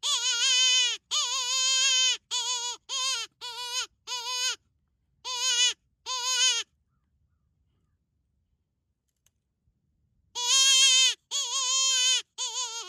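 A coyote predator call sounding a series of high, wavering distress cries, each about half a second long and dipping and rising in pitch. One run stops about six and a half seconds in, and another starts about four seconds later.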